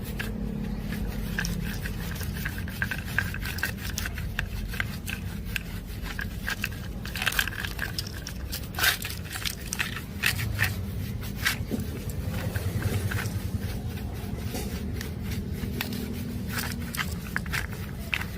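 Irregular small clicks, taps and scraping, as of hands and tools handling the parts of a cassette player, over a steady low hum.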